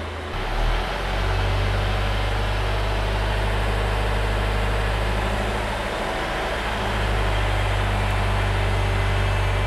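Citroën C5 Mk1 engine idling steadily at about 1000 rpm. The electric radiator cooling fan does not come on with the air conditioning switched on, which the owner puts down to no refrigerant in the system after the crash.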